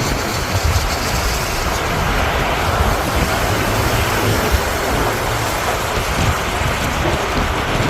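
Strong wind buffeting the microphone: a steady, loud rush with an uneven low rumble.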